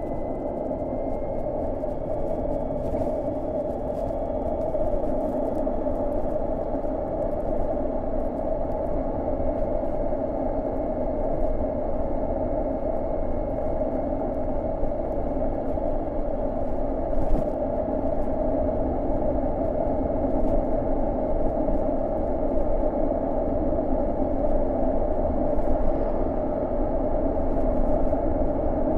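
Harley-Davidson LiveWire electric motorcycle on the move: steady wind and tyre noise, with a faint high whine from the electric motor that rises slightly early on and no engine sound.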